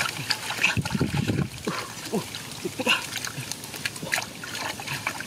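A plastic basket scooped through shallow muddy water and lifted out, water splashing and trickling through its holes in irregular bursts.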